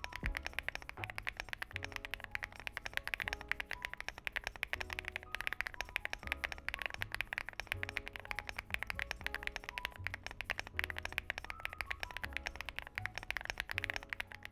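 Fast, continuous typing on a Lucky65 v2 mechanical keyboard with factory-lubed Keygeek Matcha Pudding linear switches on an FR4 plate: a steady stream of deep, full keystrokes.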